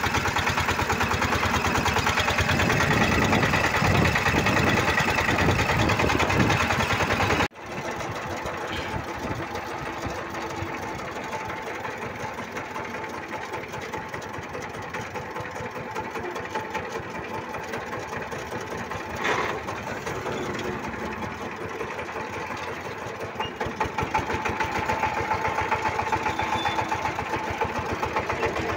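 Single-cylinder Changfa diesel engine of a bhotbhoti motor van running with a fast, even knocking chug. About seven seconds in, the sound drops abruptly and goes on quieter, then grows louder again near the end.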